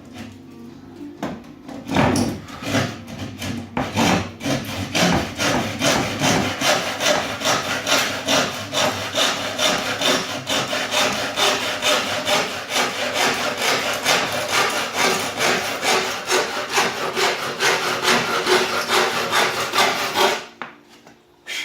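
Hand saw cutting through wood in steady, even back-and-forth strokes, about three a second, that stop abruptly near the end.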